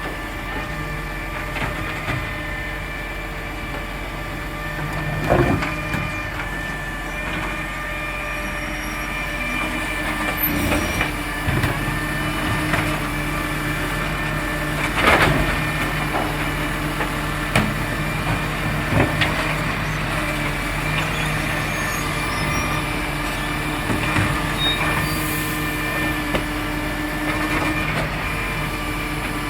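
Garbage truck running steadily, its exhaust leak repaired, with several sharp clunks over the top, the loudest about halfway through.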